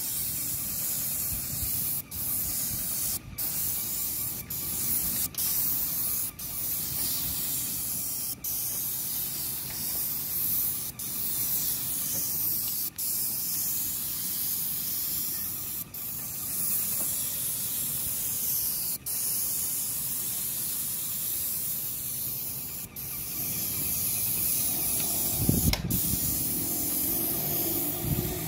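Hose-fed paint spray gun hissing steadily as it sprays waterproofing acrylic resin onto clay roof tiles, the hiss breaking off for an instant every few seconds. Low rumbling joins in near the end.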